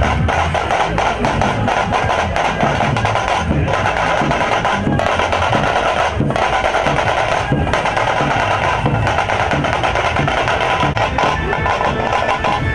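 Loud drumming with percussion, beating a steady, dense rhythm.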